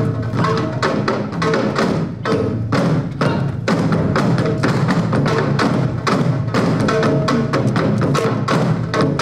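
Korean traditional drum ensemble playing a fast, dense rhythm on janggu hourglass drum and large buk barrel drums struck with sticks, many strokes a second.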